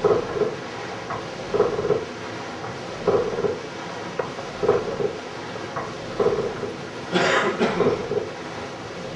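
Hand-worked forge bellows pumped in a steady rhythm, a puff of air into the coal fire about every second and a half, with one longer, brighter gust about seven seconds in. The fire is being driven to get the bodkin point as hot as possible without burning it, ready for quenching.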